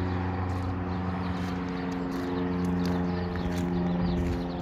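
Small propeller airplane's engine droning as it flies over, a steady pitch that swells a little in loudness around the middle.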